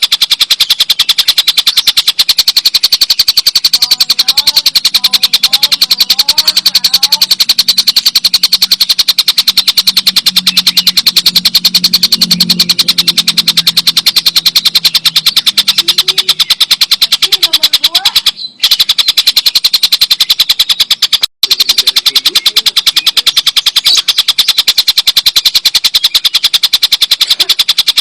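Tengkek buto kingfisher giving its long, loud cackling call, a very fast rattle of sharp notes kept up without pause, broken only by two brief gaps in the last third.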